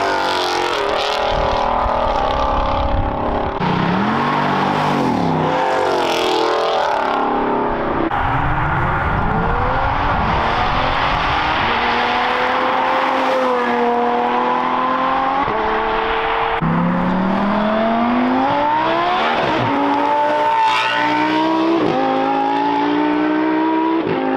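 A string of performance cars accelerating hard one after another, among them a Ford Mustang and a red Ferrari. Their engines rev up through the gears, the pitch climbing and then dropping back at each shift as each car goes by.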